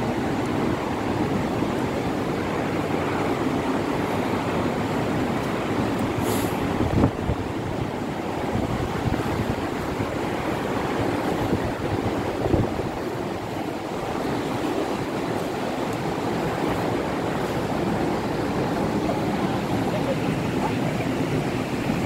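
Steady rushing roar of the Akiu Great Falls, a large waterfall, with a couple of soft knocks from footsteps on the stone steps.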